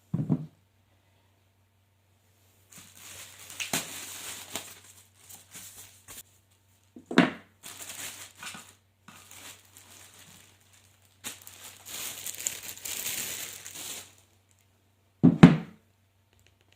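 Packaging being handled during an unboxing: three long stretches of crinkling and rustling, with a few dull thumps, the loudest near the end.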